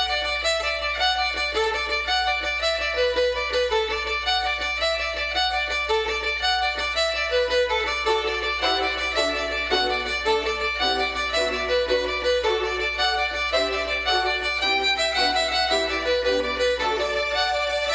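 Recorded Irish traditional music led by a fiddle, playing a steady stream of quick melody notes.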